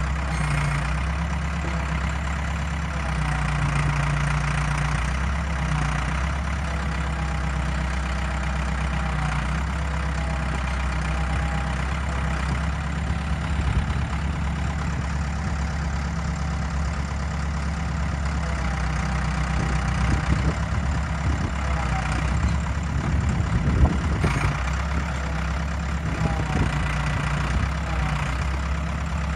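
Ford 655 backhoe loader's engine running steadily, with irregular knocks and clatter in the second half, the loudest a little before the end.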